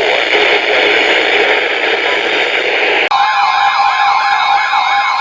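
Radio hiss, then about three seconds in an electronic emergency alert tone cuts in abruptly: steady tones with a siren-like warble sweeping up and down over them, two to three times a second.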